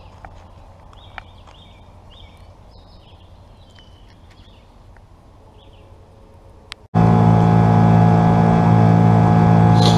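Small birds chirping faintly over quiet outdoor background, then, about seven seconds in, a sudden switch to a small fishing boat's outboard motor running steadily underway, loud and close.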